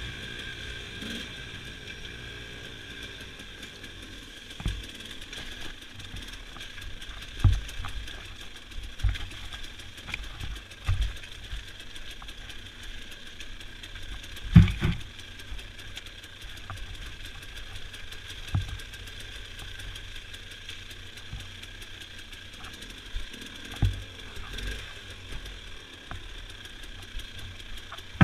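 Dirt bike rolling slowly down a rough, rutted trail with its engine running low, a steady hum under a series of thumps and knocks from the bike going over bumps. The loudest knock comes about halfway through.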